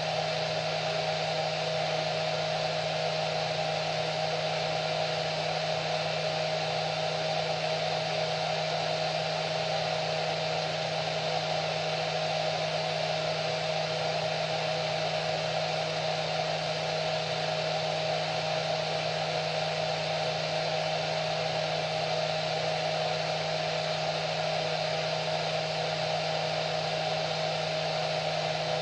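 Hair dryer running continuously at a constant speed: a steady rush of blown air over a motor hum with a whine.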